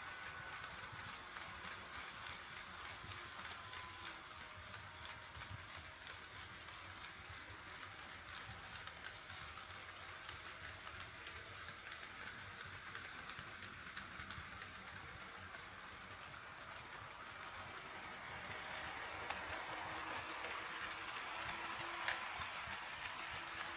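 HO scale model train running on KATO Unitrack: a steady rolling rumble with wheels clicking over the rail joints, growing louder over the last few seconds as it comes closer, with one sharper click near the end.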